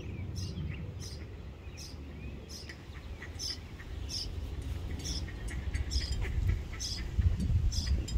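Outdoor ambience: a short high chirp repeating about one and a half times a second, over a low rumble on the microphone that grows louder near the end.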